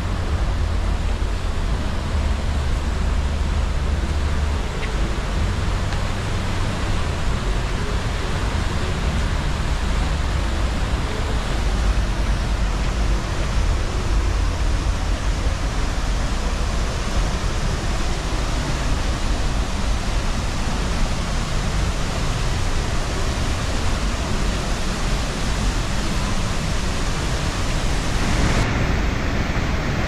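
Steady rushing noise of a waterfall, even and unbroken, with a deep rumble underneath. About a second and a half before the end it changes abruptly to a duller noise.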